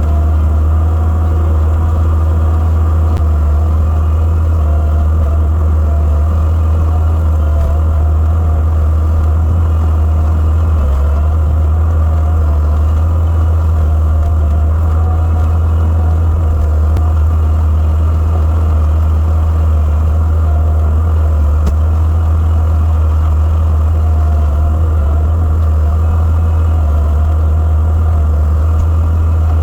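Gehl 5635SX skid steer's engine running steadily, a loud, deep, unbroken drone.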